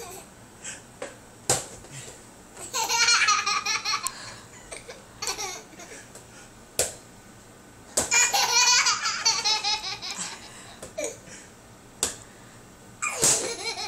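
A baby laughing in three hearty bouts of rapid, hiccuping belly laughs, each set off shortly after a sharp click.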